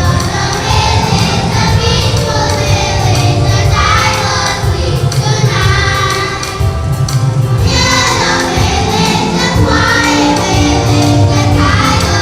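Music with a group of voices singing together over a heavy bass line.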